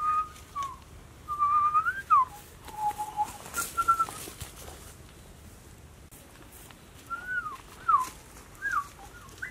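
A series of short whistled notes, some held level and some gliding up or down, in two bursts with a pause of a few seconds between them. A brief rustle comes about three and a half seconds in.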